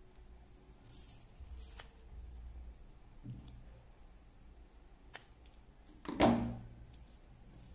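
Scissors snipping and handling foam tape, soft scrapes and clicks, then a sharp clack about six seconds in as the metal scissors are set down on the wooden table, the loudest sound.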